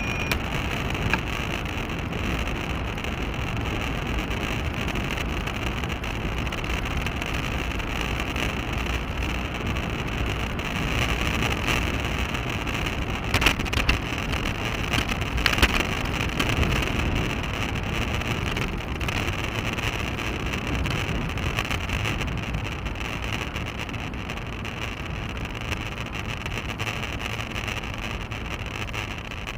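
Wind buffeting the microphone of a bicycle-mounted action camera while riding, over steady tyre and road rumble. A few sharp knocks come about halfway through.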